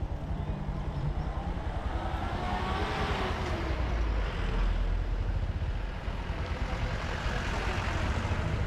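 Motor vehicle engine and road noise, a steady low rumble that swells about four seconds in.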